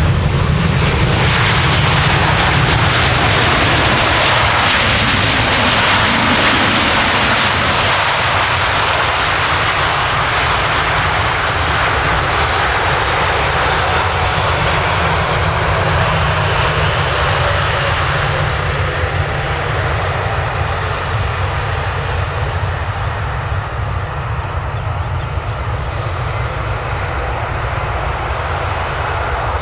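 Boeing 737-800's CFM56-7B jet engines running loud on the landing rollout, ground spoilers up, then winding down with a falling whine after about ten seconds as the airliner slows; the sound eases as it rolls away.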